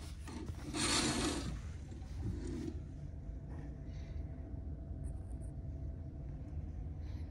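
Cloth curtain drawn aside from a cabin window: a swish about a second in and a shorter one soon after. Under it, the steady low drone of the ferry's engines heard inside the cabin.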